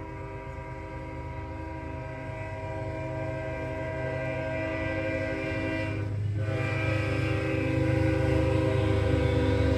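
Train horn sounding a long blast, breaking off briefly about six seconds in, then sounding again over the train's low rumble. The sound grows steadily louder as the train approaches.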